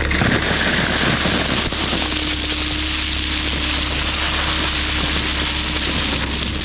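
Gravel pouring out in a steady rattling hiss that starts suddenly. A diesel machine's engine runs steadily underneath.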